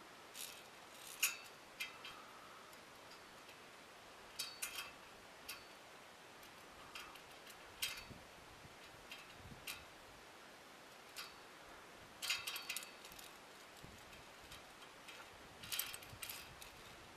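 Irregular sharp metallic clicks and clinks, some single and some in quick clusters, over a faint hiss: via ferrata carabiners and climbing gear knocking against a steel ladder and safety cable.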